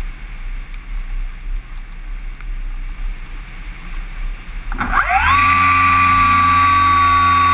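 Wind rushing over a radio-controlled Kyosho Stratus 2000 motor glider as it glides with its propeller folded, then nearly five seconds in its electric motor starts: a quick rising whine that levels off into a loud steady whine as the folding propeller opens and spins.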